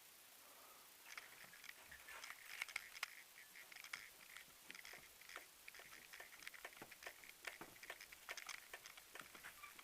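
Faint, quick, irregular clicking and creaking from the rear right suspension of a third-generation Honda CR-V as the car is rocked. This is the unexplained knock near the rear right strut that the owner is trying to trace.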